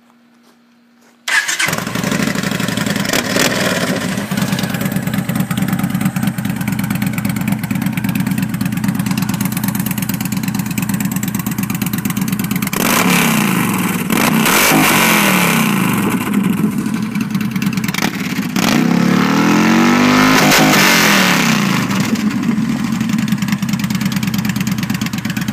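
2011 Yamaha Stryker's V-twin engine, breathing through an aftermarket Rush exhaust and intake, starting about a second in and settling into a loud idle. It is then revved up and back down twice, the second rev held longer.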